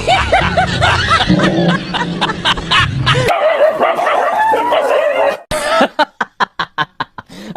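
Short repeated animal calls over background noise, changing abruptly twice as the sound cuts. A plucked-string tune starts about six seconds in.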